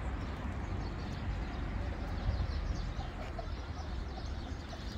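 Small birds chirping, many short high chirps following one another quickly, over a steady low rumble.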